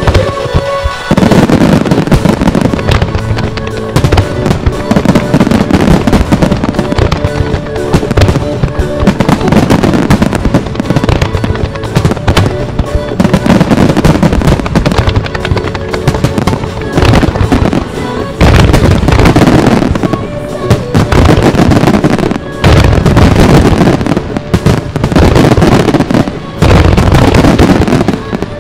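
A music starmine fireworks barrage: rapid, overlapping shell bursts and crackling go on without a break, with music playing alongside. After a short dip about a second in, the firing grows denser and louder in the second half.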